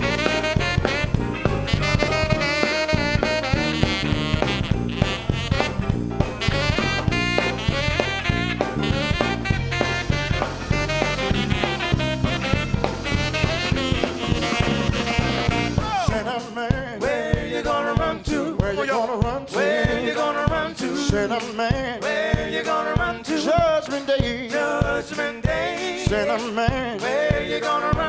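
Live gospel-jazz band playing an instrumental stretch, saxophone over drums, bass, guitar and piano. A little past halfway the heavy low accompaniment drops away, leaving the melodic lines over steady drum hits.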